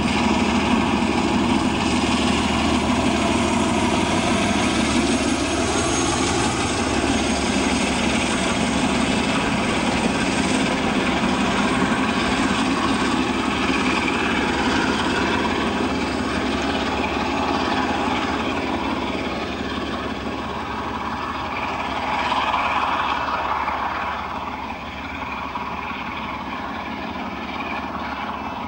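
Class 47 and Class 33 diesel locomotives with Sulzer engines working hard under load as they haul a train away, a loud, steady engine rumble. It fades as the train draws into the distance near the end.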